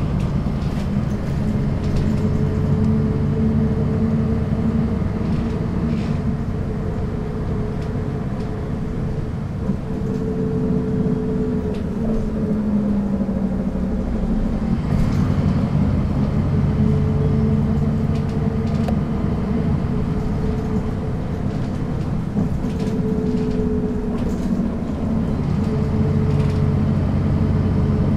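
Engine of a 1998 MAN NG 313 articulated city bus running while the bus drives, its pitch rising and falling several times through the stretch.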